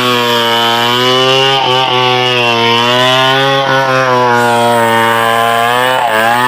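Stihl 070 two-stroke chainsaw running at high revs, its pitch wavering slightly with a few brief dips, as when the saw is working in a cut.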